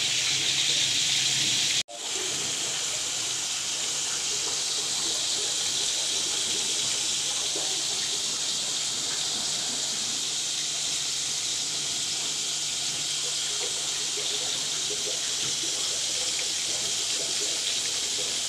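A steady, even hiss, cut off abruptly for an instant about two seconds in, then going on unchanged.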